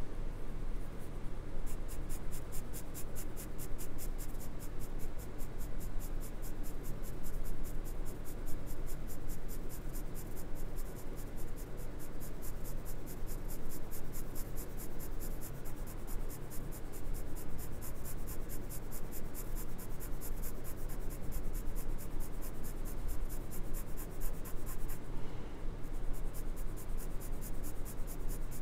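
Hard 4H graphite pencil scratching on drawing paper in quick, even back-and-forth shading strokes, about five a second, with a short pause near the end.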